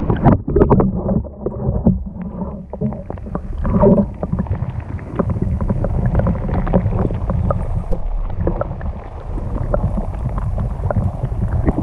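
Wind rumbling on the microphone from a canoe, with many scattered knocks and taps throughout.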